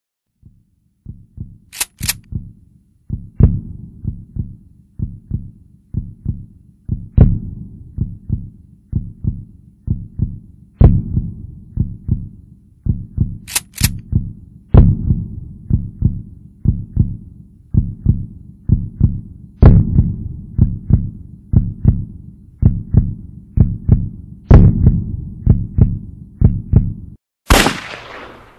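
Heartbeat sound effect: a rapid, steady pounding of low thumps, broken by a few sharp high clicks. Near the end comes a short rush of noise that cuts off suddenly.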